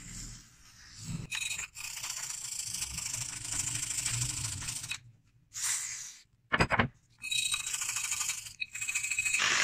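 A small brush scrubbing rust inside an antique rifle's steel receiver, in two stretches of steady scratching with a short clatter between them. A rotary sander starts up at the very end.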